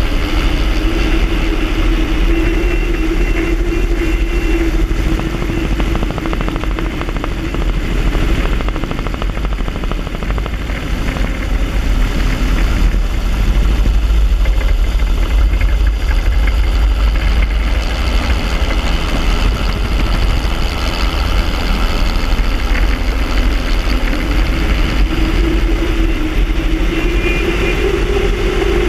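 Helicopter in low flight, heard from a camera on its airframe: steady turbine and rotor noise over a heavy low rumble. A droning tone fades in the middle and comes back rising near the end, over a steady high whine.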